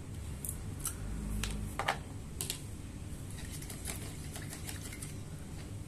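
Irregular light clicks and taps, a few spaced ones at first and then a quicker run of them around the middle, over a steady low hum.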